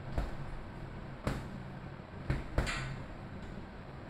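Boxing gloves striking a double-end punching ball: four sharp slaps with uneven gaps, the last two close together.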